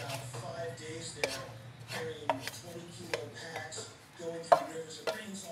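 Wooden spatula scraping and tapping against a nonstick frying pan as cooked food is pushed out into a bowl: an irregular series of sharp knocks with short scraping sounds between them, the loudest about four and a half seconds in.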